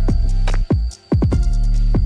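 Electronic background music with a heavy bass and sharp, swept beats; the bass drops out briefly about a second in.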